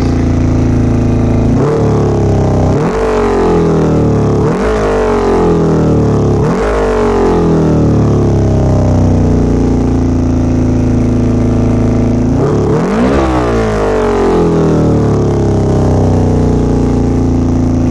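Carbureted inline-four engine of a 2000 Honda CBR600 running at a raised idle, blipped several times so the revs jump up and fall back. The poor throttle response comes from a vacuum leak at a cracked carburettor intake boot.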